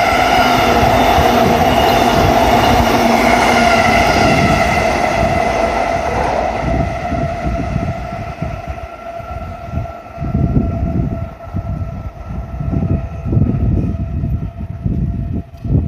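JR East E233 series electric train running, its traction motors giving a steady whine of several tones that fades after about six seconds, leaving uneven low buffeting and a faint lingering tone.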